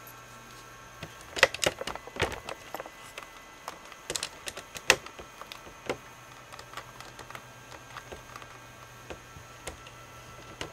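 Irregular sharp clicks and crackles, two dense clusters in the first half and then sparser, scattered ones, over a faint steady high whine and low hum.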